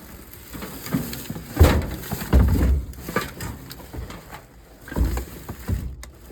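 Knocks and thuds from a metal toaster oven being handled and banged while it is taken apart: a sharp knock about a second and a half in, a heavier thud just after, and another thud about five seconds in.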